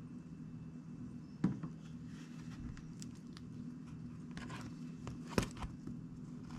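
Light clicks and taps from handling a laptop tablet's parts on a work surface, with a knock about a second and a half in and a sharp click a little after five seconds, over a steady low hum.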